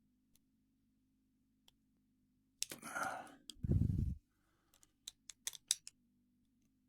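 A heavy sigh-like breath about three seconds in, then a quick run of small, sharp metal clicks as tools work at the C-clip on a lock cylinder.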